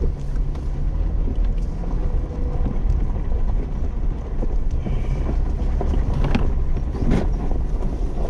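Jeep driving slowly along a rough gravel trail: a steady low engine rumble with tyres crunching over stones, and a couple of sharp knocks in the second half as it rolls over the rough track.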